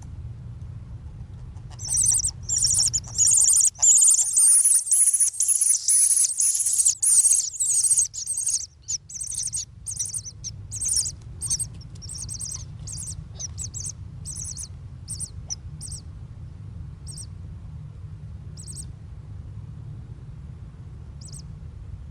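High-pitched bird calls: a dense run of chirping that thins out to single, spaced calls, over a steady low rumble.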